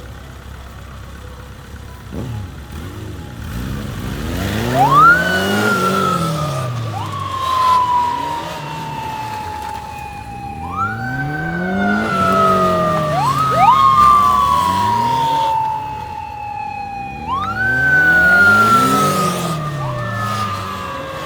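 Sirens of several police motorcycles sounding together, each one rising quickly and then falling slowly, repeating about every six seconds and starting about four seconds in. Beneath them, the motorcycle engines rise and fall.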